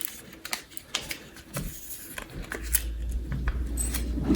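Small clicks and light rattles of handling the iMac's backlight inverter board and its connectors, with a low rumble from about halfway through.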